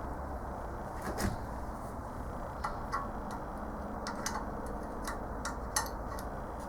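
Scattered light metal clicks and taps from a homemade valve spring compressor being worked on a valve spring, a little louder about a second in, over a steady low hum.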